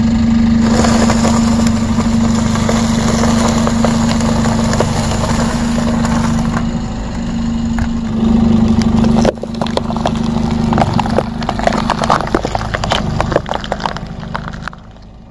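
Car engine idling with a steady hum while a tyre rolls over slices of dry toast, crackling and crunching them. After a cut about nine seconds in, the tyre crushes green bell peppers with a run of sharp cracks, and the sound fades out at the end.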